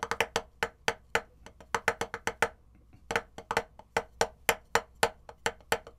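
Wooden drumsticks tapping a drum practice pad, hands alternating, in a steady run of low strokes, about five a second, with a short pause about halfway through. Each stroke starts and ends just above the pad.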